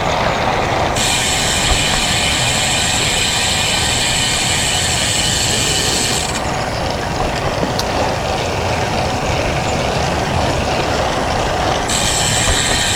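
Road bike's rear freehub ratcheting in a fast, high buzz while coasting, from about a second in until about six seconds, and again near the end. Throughout, wind rushes on the helmet camera's microphone along with tyre noise on the road.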